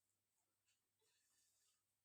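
Near silence: room tone with a few faint, soft rustles.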